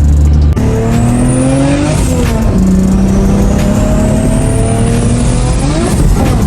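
Big-turbo Mitsubishi 3000GT's 3.0 V6 under full-throttle acceleration: the revs climb, drop at a gear shift about two seconds in, climb again through the next gear and fall away near the end. A high whistle rises with the revs in each gear.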